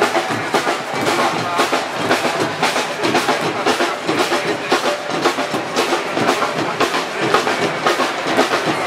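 Music with busy, steady drumming.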